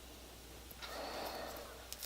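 A person breathing out once, a soft swell a little under a second long, with a few faint ticks from handling small parts.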